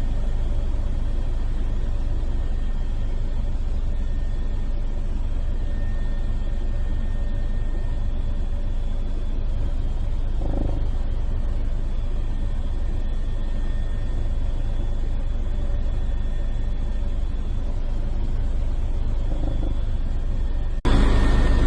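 Helicopter running steadily: a continuous low rumble with steady high whining tones. Near the end the sound cuts suddenly to a louder, brighter stretch.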